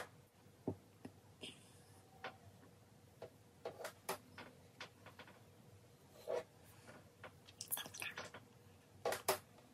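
Faint handling sounds of a LivChic flat iron clamped on and drawn down sections of hair: scattered light clicks and short crackling rustles.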